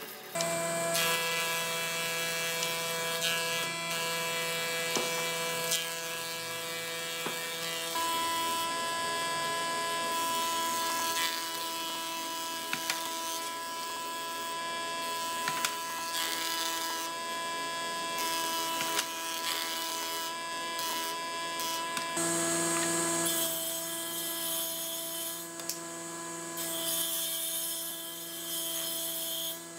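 Woodworking machines running with a steady motor whine and occasional clicks: a bandsaw cutting a board, then a combination jointer-planer shaving a board. The machine note changes abruptly about a second in, again about 8 seconds in and about 22 seconds in.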